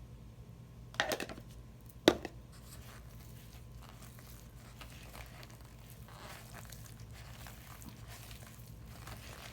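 Kitchen containers and utensils handled on a counter while milk is added to cupcake batter: a short rattle of clicks about a second in, a sharp knock a second later, then faint rustling.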